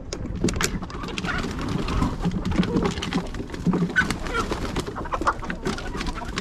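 Flock of chickens and roosters clucking in short low calls as they rush out of the coop, over many quick taps and flutters of feet and wings on the wooden ramp.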